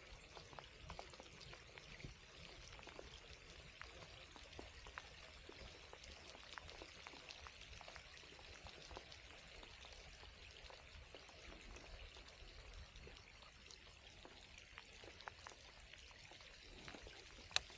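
Light rain pattering: a faint steady hiss dotted with many small drop ticks, and one sharp click near the end.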